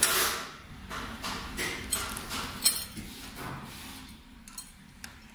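Small metal screws clinking in a hand and against a steel mounting plate, with a tool tapping the plate: a clatter at the start, then scattered sharp clicks, the loudest about two and a half seconds in.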